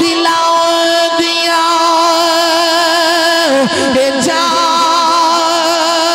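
A man singing Punjabi Sufi verse in a drawn-out, melismatic style. He holds one long note with vibrato for about three and a half seconds, breaks into quick ornamented turns, then settles on a second long held note.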